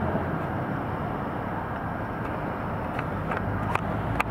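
Steady low outdoor rumble on the microphone, with a few sharp knocks in the second half, the loudest near the end.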